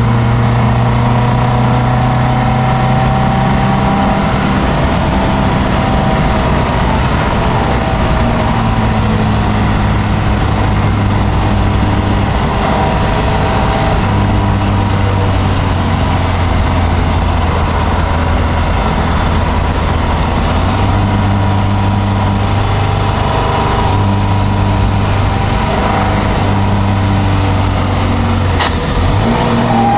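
Triumph Dolomite Sprint's 2.0-litre slant-four engine pulling hard on track, heard from inside the cabin. Its pitch steps down and back up several times as the revs change through the lap, with a brief dip in revs near the end.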